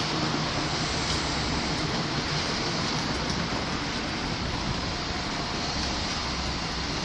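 A train passing through the station: steady, continuous wheel-on-rail and running noise with a low hum underneath.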